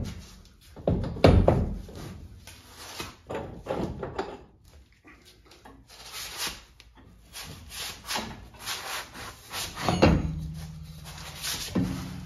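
A Toyota Tundra's rear driveshaft being worked loose and lowered out by hand. It makes irregular knocks, clunks and scraping against the underbody, with gloved hands rubbing on it. The loudest clunks come about a second in and again about ten seconds in.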